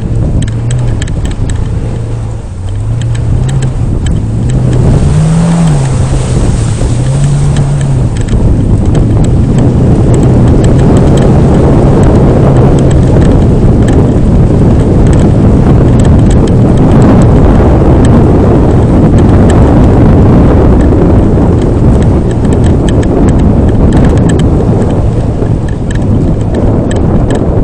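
Off-road vehicle engine revving up and down several times in the first eight seconds, then a loud, steady rumble as the vehicle drives on.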